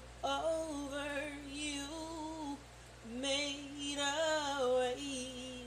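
A woman singing a gospel song unaccompanied: two long drawn-out phrases with vibrato and melismatic runs, the second starting about three seconds in.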